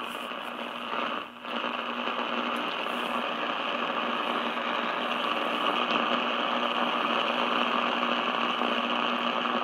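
Static hiss from a Realistic DX-302 shortwave receiver's speaker, steady, with a low hum beneath it and a brief dip about a second in. The band noise comes up sharply as the preselector is brought onto the right band, and the set is tuned around 2 MHz with no station heard.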